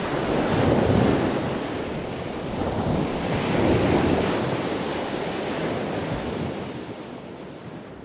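Ocean surf breaking, a steady roar that swells with two waves, about a second in and again about four seconds in, then eases off toward the end.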